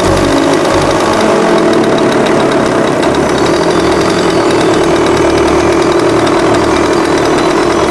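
Model-aircraft engine running steadily, loud and close.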